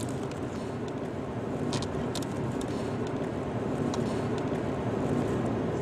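Car driving at speed, heard from inside the cabin: steady engine and tyre noise, with a few faint ticks about two seconds in.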